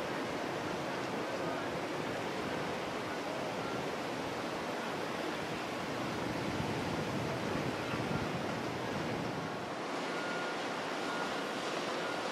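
Steady rush of water and wind, as from boats under way on open water, with no clear engine note. A faint thin steady tone comes in about ten seconds in.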